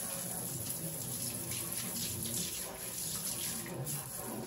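Kitchen faucet running from a pull-down spray head held low into a stainless steel sink: a steady rush of water.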